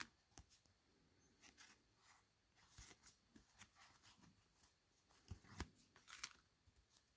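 Faint rustles and light taps of cardboard game cards being handled and flipped over one at a time, with a few slightly louder clicks near the end.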